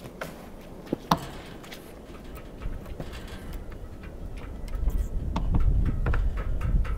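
A wooden gate being set onto its leg-bolt hinge pins: light knocks and clicks of wood and metal, with one sharp knock about a second in. From about five seconds a low rumble builds.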